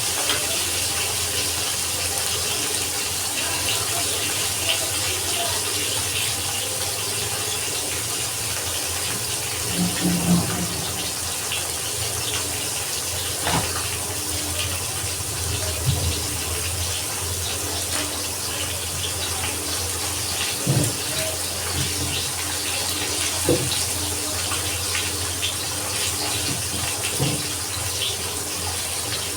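Water running steadily from a kitchen tap, with a few short knocks scattered through it.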